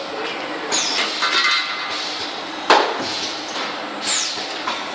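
CNC lathe running with coolant spraying. There is a single sharp metallic clank a little under three seconds in, and a brief falling hiss near the start and another near the end.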